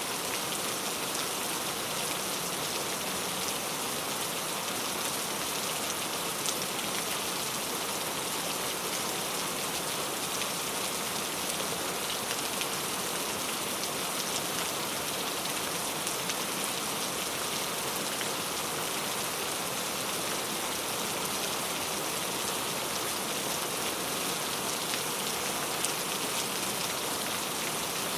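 Heavy rain falling steadily, a dense even hiss with the faint patter of individual drops.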